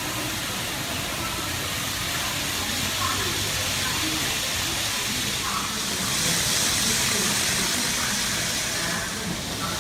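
N-gauge model Shinkansen trains running on a layout track: a steady hiss, louder and brighter for a couple of seconds around six seconds in, with a faint murmur of voices in the room.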